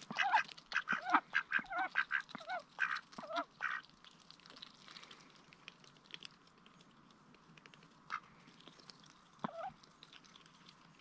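Mixed-breed Indian runner ducks quacking: a quick run of short quacks over the first four seconds, then two single quacks later on.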